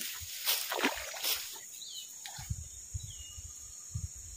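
Steady chorus of crickets and other insects, with brief rustling and handling noises in the first second and a half and low thumps near the end.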